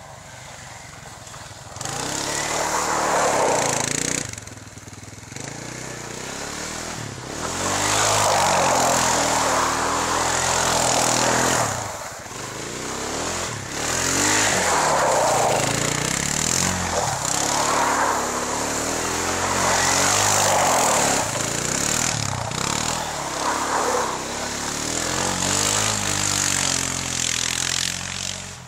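Kymco Maxxer 300 quad's single-cylinder four-stroke engine revving hard and falling back again and again during controlled power slides. A hiss of spinning tyres on gravel and slush runs under it.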